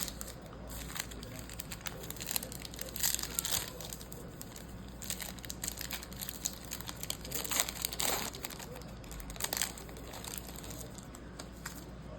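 Plastic wrapper of a trading-card pack crinkling and tearing as it is opened, in irregular crackly bursts.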